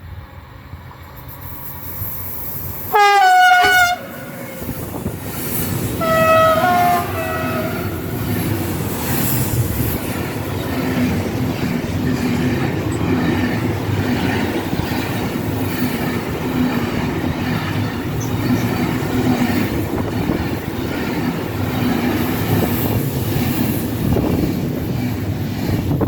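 Siemens Vectron electric locomotive sounding its horn in two blasts as it approaches, a short very loud one about three seconds in and a longer, lower-pitched one a few seconds later. The locomotive and its train then pass close by with a steady rumble and rhythmic clickety-clack of wheels over rail joints.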